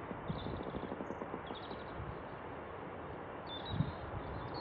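Airbus A320 taxiing, a steady jet rumble with wind buffeting the microphone in short low thumps and a few brief bird chirps.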